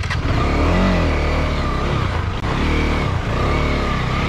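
Adventure motorcycle engine revving up and down under load while climbing a rocky off-road slope, its pitch rising and falling several times over a steady low rumble.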